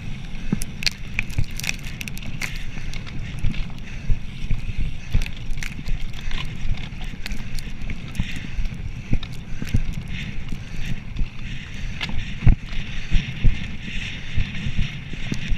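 Mountain bike rolling fast over a rough dirt trail: a steady rumble of tyres and wind buffeting the microphone, broken by frequent sharp clatters and knocks as the bike jolts over bumps.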